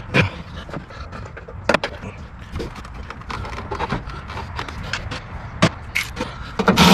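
Scattered clicks and knocks of hand tools and parts being handled in a truck's engine bay, with a louder, longer noisy rasp near the end.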